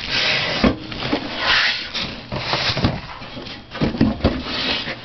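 Handling noise from a heavy metal fire alarm control panel and its packaging being moved about: dull knocks, with bursts of rustling roughly every second.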